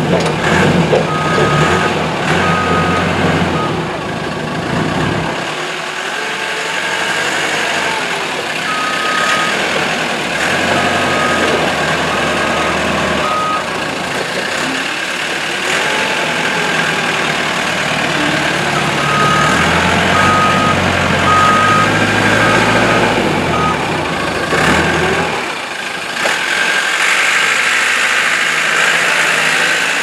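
JCB 926 rough-terrain forklift's diesel engine running as the machine moves on gravel, its revs rising and falling. A reversing alarm sounds three times as a run of evenly spaced high beeps.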